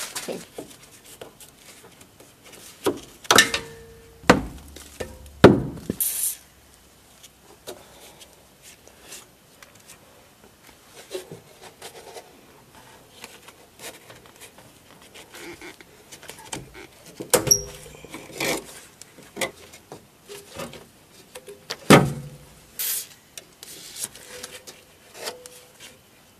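Rubber exhaust hangers and the exhaust pipe of a 1999 Mazda 626 being worked by gloved hands: scattered knocks and thuds with rubbing and handling noise in between. The loudest knocks come in two clusters, a few seconds in and again past the middle.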